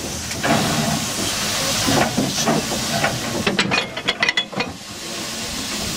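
Steady hiss of steam from a standing Jung-built 1945 steam tender locomotive. A quick run of sharp clicks comes a little past halfway.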